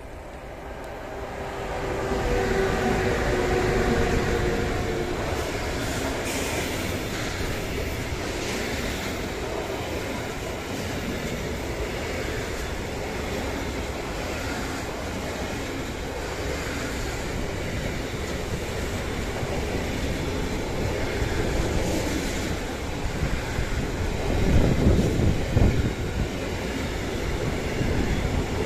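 Electric-hauled freight train of semi-trailers on pocket wagons passing close by. It starts with a steady whine from the two electric locomotives as they draw level about two seconds in, then a steady rumble and clatter of wagon wheels on the rails. Gusts of wind hit the microphone near the end.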